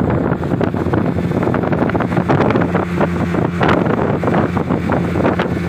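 Small boat under way at speed on its outboard motor: a steady engine drone under the rush of water along the hull and heavy wind noise on the microphone.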